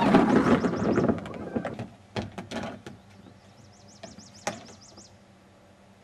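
Plastic wheels of a toy roller-coaster car rumbling along its plastic track, loudest in the first second. A few clacks and a single sharp knock of plastic follow. A small bird chirps in quick runs in the background.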